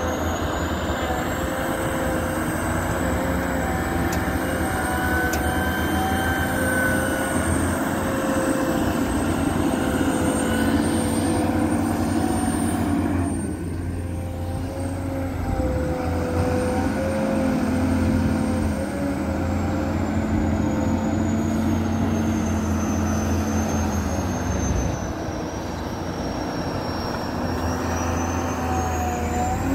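Atlas TC3306 tracked excavator running while it digs: a steady diesel drone with a whine that drifts up and down in pitch, easing briefly twice as the work pauses.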